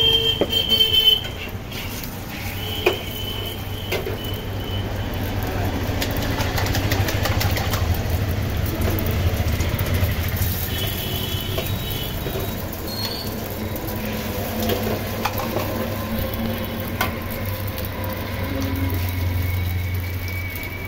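Eggs frying on a flat iron griddle over a gas burner, under a steady low hum, with a metal spatula clicking and scraping on the griddle a few times.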